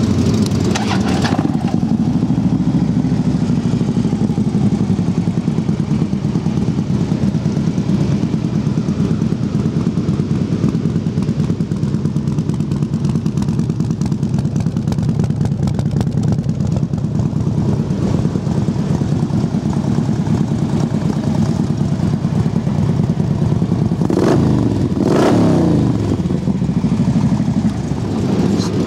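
2012 Harley-Davidson Street Glide's 103-cubic-inch fuel-injected V-twin idling steadily through Vance & Hines slip-on mufflers. It is briefly revved twice near the end.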